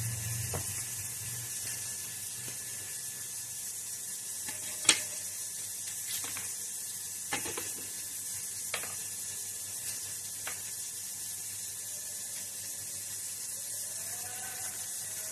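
Fresh green beans snapped by hand: about six sharp crisp snaps spread a second or two apart, the loudest about five seconds in, over a steady hiss.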